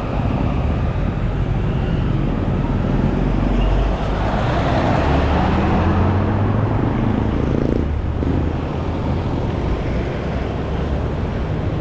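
Street traffic: steady road noise, with a motor vehicle's engine passing close by and loudest about midway.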